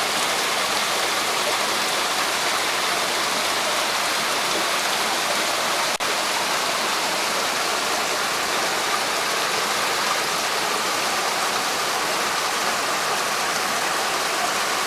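Creek water rushing steadily over rocks and a small cascade, with a momentary dropout about six seconds in.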